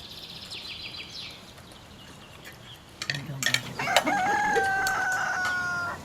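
A rooster crowing once, its call ending in a long held note that cuts off sharply near the end. A quick high-pitched trill is heard in the first second.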